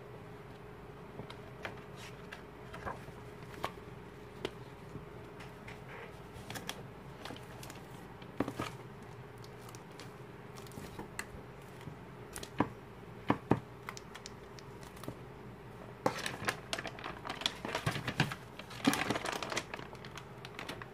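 Hands handling photobook items in clear plastic wrapping: scattered soft clicks and rustles, then plastic wrap crinkling steadily for the last few seconds. A faint steady hum runs underneath.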